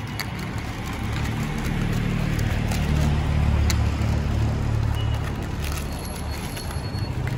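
A motor vehicle's engine running close by, a low rumble that grows louder to a peak about three to four seconds in and eases off after about six seconds.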